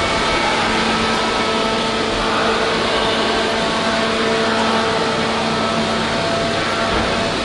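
Steady mechanical hum and hiss with a few faint held tones, unchanging throughout.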